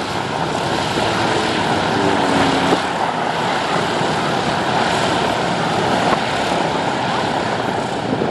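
The four nine-cylinder Wright Cyclone radial engines of a Boeing B-17 Flying Fortress running on the ground with their propellers turning, a steady engine drone.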